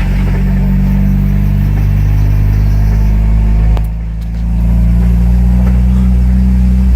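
Car engine running steadily, with a brief drop in level about four seconds in.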